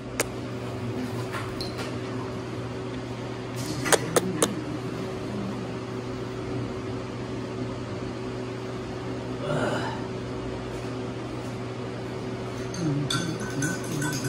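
A steady low machine hum with a constant hiss, broken by a few sharp clicks about four seconds in.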